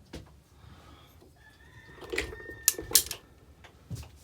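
Sharp metallic clicks of a Troy flip-up front battle sight on an AR-15 being handled and snapped into place, the loudest few coming between about two and three seconds in, with a faint steady high tone under them.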